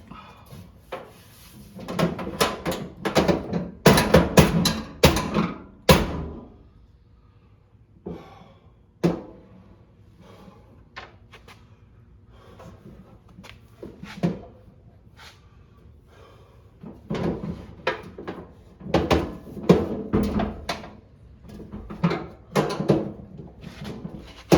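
Irregular knocking and clattering of hard objects being handled, in two busy spells with a quieter stretch between.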